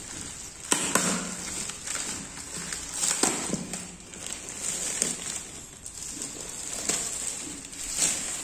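Plastic courier mailer and its crinkly plastic inner wrapping being pulled open and handled by hand. The sound is an irregular rustling and crinkling, with several sharp crackles.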